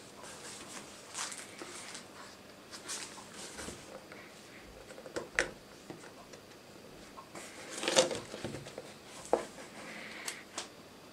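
Handling sounds of a phone box: scattered rustles, scrapes and light taps of cardboard and the box's tray as a Samsung Galaxy Note8 is lifted out and turned over in the hands, the loudest knock about eight seconds in.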